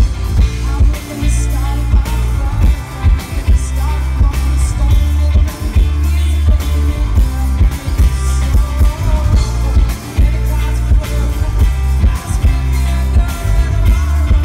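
A live rock band plays loudly: electric guitar, electric bass and a drum kit in a steady, driving jam, with a heavy bass line and regular drum hits.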